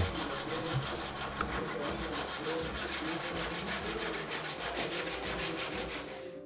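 Brass-backed handsaw (backsaw) cutting across a hardwood board with quick, even back-and-forth strokes, rasping steadily as it cuts the shoulder of a half-lap joint. The sawing stops suddenly just before the end.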